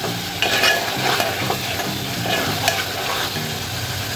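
Slotted steel spoon stirring and scraping masala paste frying in oil in a metal pot, with repeated scrapes over a steady sizzle: the ground coconut masala is being roasted in oil.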